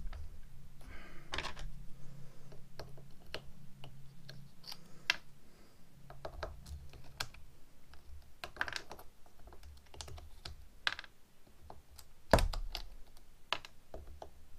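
Plastic Lego bricks being unclipped and prised off a mould box, giving irregular sharp clicks and clatters as they come apart and drop onto a wooden board. A louder knock comes near the end.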